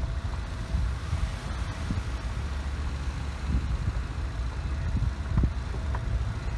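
Car driving: a steady low rumble of engine and road noise, with a few faint knocks.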